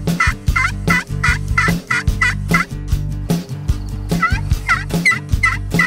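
Turkey yelping: a run of short, even notes about three a second, a break of about a second and a half near the middle, then another run.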